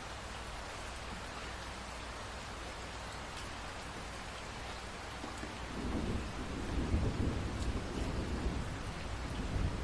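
Steady rain hiss; about six seconds in, a low rumble of thunder builds and carries on under the rain.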